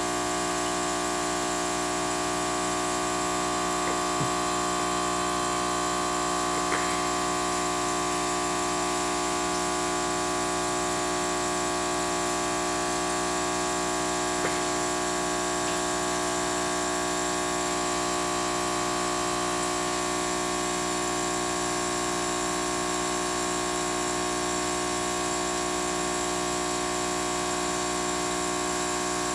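Aquarium pump running: a steady electric hum made of several held tones, with three faint clicks in the first half.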